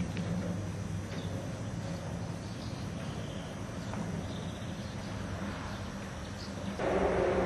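Outdoor ambience picked up by a camcorder's built-in microphone: steady background noise over a low hum, growing louder about seven seconds in.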